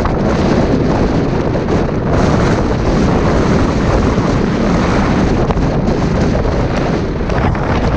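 Strong wind buffeting the microphone: a loud, steady rumble of wind noise.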